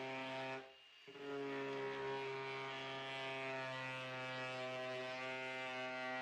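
Angle grinder motor running with a steady whine while its cylindrical attachment works a groove into a pine board. The sound cuts out for about half a second around a second in, then resumes.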